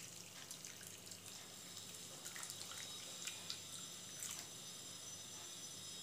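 Whey from milk split with lemon juice pouring through a cotton cloth and strainer into a vessel below, trickling and dripping faintly, with a few small drips.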